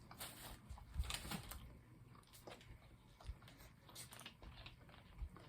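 Faint chewing and mouth sounds of someone eating chicken, with scattered small clicks and smacks, a few louder ones about a second in.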